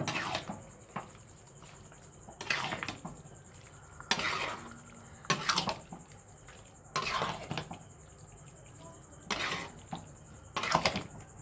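Spatula stirring and scraping through thick chilli chicken gravy in a kadai, in separate strokes about every one to two seconds.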